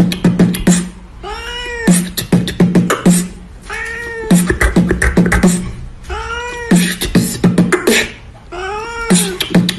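A cat meowing in time with a person beatboxing. Four meows rise and fall in pitch, evenly spaced about two and a half seconds apart, and between them runs a quick beat of mouth clicks and low thumps.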